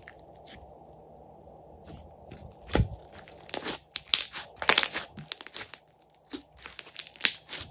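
Thick glossy slime being stretched, squeezed and pressed by hand, giving off runs of sharp pops and crackles as air pockets in it burst. Sparse at first, the pops come thickest in the middle and again near the end.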